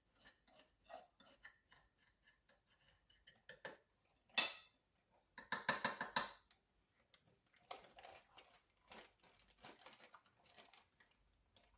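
Dishes and utensils handled while breading chicken: scattered light clinks and knocks, one sharper knock about four seconds in and a quick run of taps around six seconds, then soft scraping and rustling.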